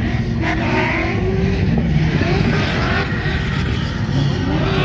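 Race car engines revving, their pitch wavering up and down over a steady loud din.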